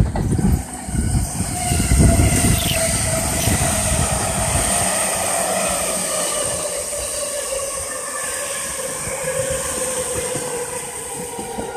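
JR East E231 series electric commuter train running past close by, its wheels rumbling heavily over the rail joints for the first few seconds. Its traction-motor whine then falls slowly in pitch as the train slows.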